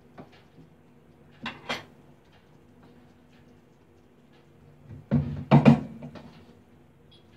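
Light metal clinks of a spoon on a metal plate over a frying pan, two sharper knocks about a second and a half in, then a louder clatter of several knocks about five seconds in as the metal plate is handled. A low steady hum runs underneath.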